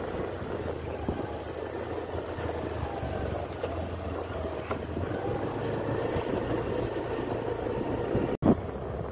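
Scooter running at road speed, its small engine humming under steady road and wind noise. The sound briefly cuts out near the end.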